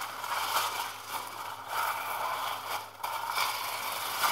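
Thin, papery warqa pastry sheets rustling and crinkling as they are handled and pulled apart, in three stretches with brief lulls about a second and a half and three seconds in.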